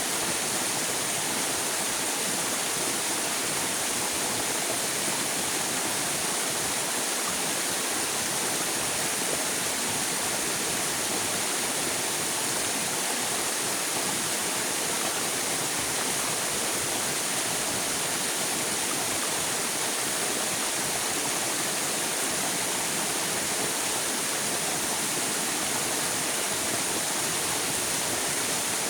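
River water flowing steadily, a constant rushing hiss without breaks.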